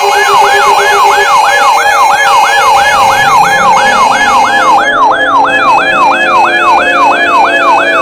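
Electronic siren sound effect, loud: a fast yelp sweeping up and down about three times a second over a steady tone, with slower wailing sweeps layered in. A rapid beeping tone joins about two-thirds of the way through.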